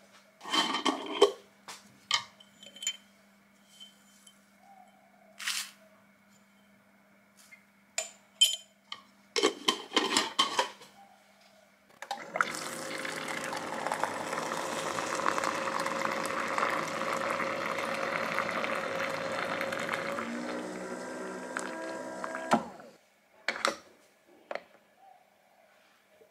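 Water from a wall-mounted dispenser pouring into a glass tea pitcher through its mesh infuser, a steady stream lasting about ten seconds. Before it come light clinks and knocks of the glass pitcher and infuser being handled and set down, and after it a couple of single clicks.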